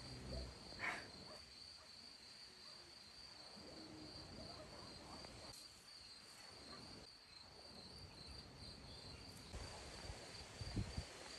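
Crickets chirping in one steady high trill, faint throughout. A few soft knocks come near the start, and a louder one comes just before the end.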